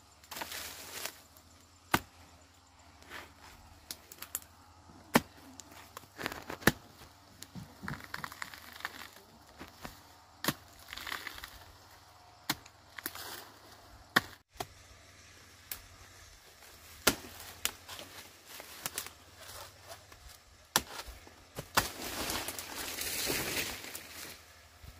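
Sharp, irregularly spaced knocks and cracks, about one every second or two, with bouts of rustling in between and a longer stretch of rustling near the end.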